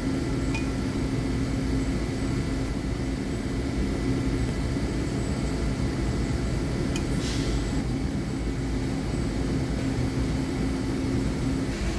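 Steady machine drone with a constant hum, from running workshop equipment. A light click comes about half a second in, and a sharp clack with a brief scrape about seven seconds in, as a wooden straightedge and clamp are handled on a steel plate.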